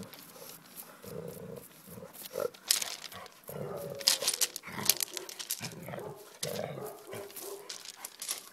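Doberman sniffing and nosing at a hedgehog rolled into a ball, in irregular short bursts of breath, with scattered clicks and scrapes of paws and spines on gravel.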